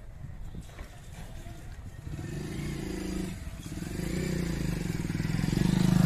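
Small commuter motorcycle approaching and passing close by, its engine note growing steadily louder from about two seconds in until it is loudest at the end.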